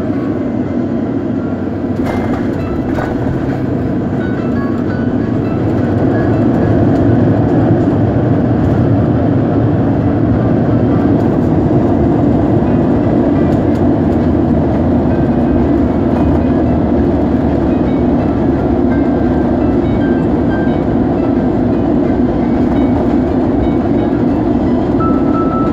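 Loud, steady rumble inside the cabin of an Airbus A350 airliner during landing, from its engines, airflow and running gear. It grows louder about six seconds in, and there are a few faint clicks near the start.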